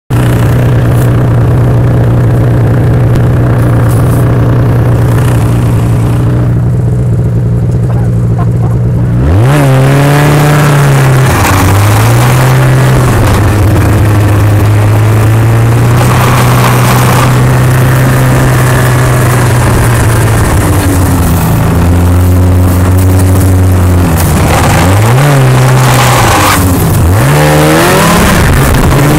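Snowmobile engine idling steadily, then revved hard at about nine seconds as the sled pulls away. Its pitch then rises and falls several times with the throttle while riding.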